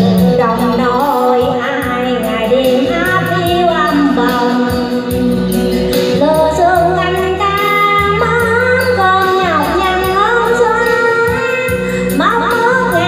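A woman singing into a handheld microphone over backing music with a steady beat and bass, her voice sliding and wavering between held notes.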